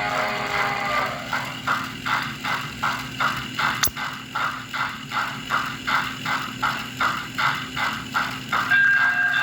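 Model steam locomotive's onboard sound system: a chime steam whistle cuts off about a second in, then even chuffing at about three chuffs a second with one sharp click partway through. Near the end a steady, higher whistle tone starts, a little raspy.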